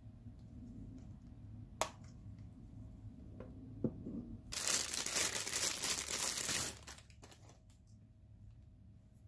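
A sharp click about two seconds in and a few light taps, then plastic bubble-wrap packaging crinkling loudly for about two seconds as a camera lens is unwrapped.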